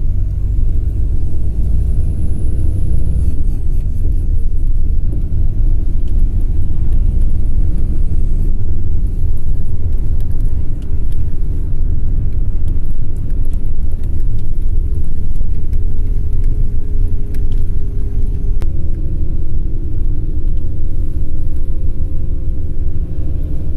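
Loud low road rumble and engine hum inside a moving car. About nineteen seconds in, the engine note steps up in pitch.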